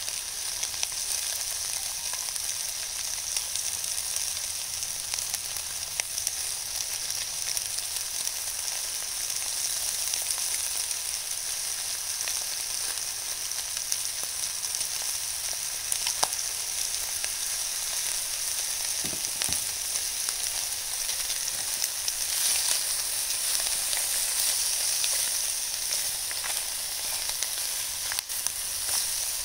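Vegetables and bacon sizzling without oil in an aluminium tray over a charcoal shichirin: a steady high frying hiss with scattered small crackles and pops.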